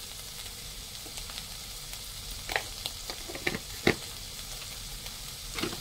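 Minced meat (keema) with ginger-garlic paste and red chili powder frying in a pan with a steady sizzle. A utensil stirring it clinks and scrapes against the pan several times in the second half, loudest just before the four-second mark.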